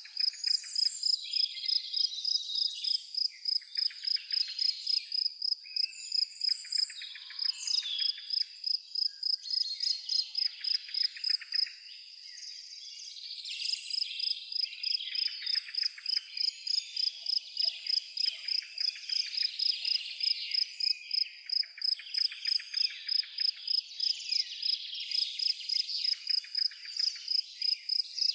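An insect chirping at one high pitch in a steady rhythm, about three to four chirps a second, with a short break near the middle. Varied bird calls and chirps sound alongside it.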